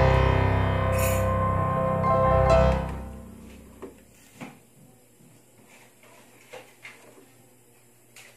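Startup music of a Platinum KBox2 karaoke player, a loud sustained chord that fades out about three seconds in. After it come faint mechanical clicks from the disc tray opening and a disc being placed in it.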